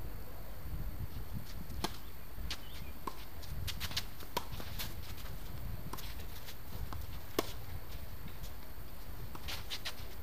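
Tennis rally on an outdoor hard court: sharp pocks of racquets striking the ball at irregular intervals of about a second, with lighter clicks in between, the loudest hit about seven seconds in. A low wind rumble on the microphone runs underneath.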